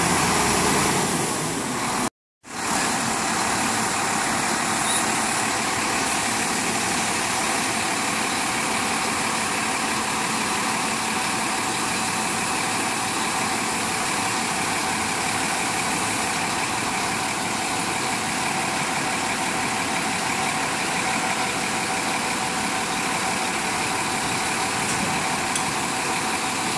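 Heavy vehicle engine running steadily, with the sound cutting out completely for a moment about two seconds in.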